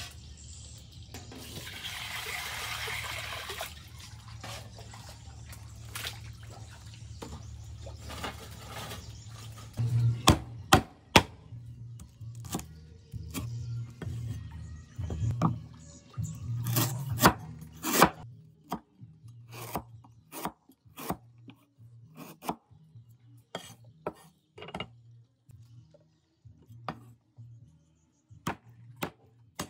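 Liquid poured from a bowl into a wok, a brief rush of splashing, then a cleaver chopping lemongrass, ginger and garlic on a thick wooden chopping block. The chopping comes as sharp knocks, in quick runs at first and then as single, spaced strokes.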